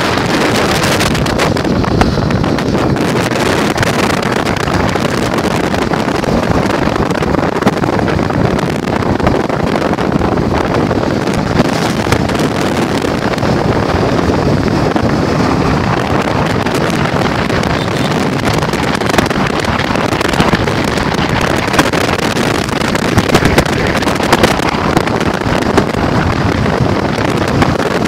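Steady rumbling wind noise buffeting the microphone, with a few short clicks near the end.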